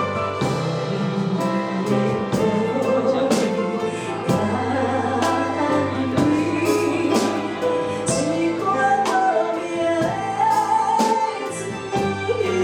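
A song with a steady beat, a melodic singing voice over instrumental accompaniment.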